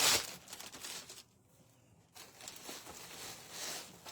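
Crinkling and rustling of packaging being handled. It breaks off about a second in, then resumes faintly.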